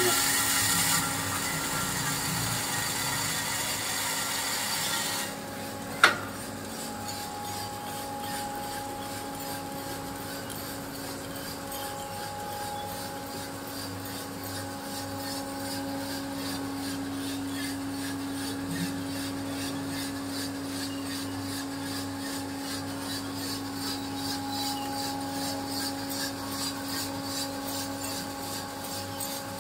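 Coffee roasting machine running: beans tumbling and rasping in the turning drum over a steady motor hum. A louder hiss in the first five seconds drops away, and a single sharp click comes about six seconds in.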